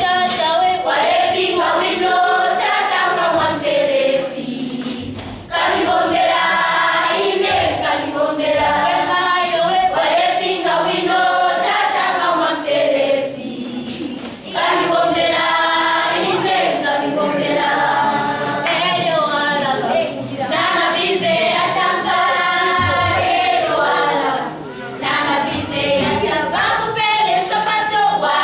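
A choir singing a song in long phrases, with brief pauses between them.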